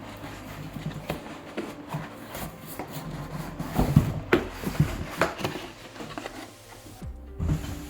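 Cardboard PlayStation 5 box being opened and handled: flaps and inner packaging rubbing and scraping, with a few sharper knocks and clicks about halfway through.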